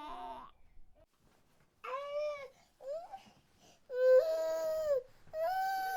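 An infant crying in separate wailing cries with short gaps between them, the longest lasting about a second.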